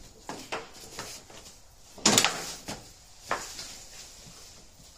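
Knocks and clatters of objects being handled in a workshop, the loudest a sharp bang about two seconds in and a smaller knock about a second after it.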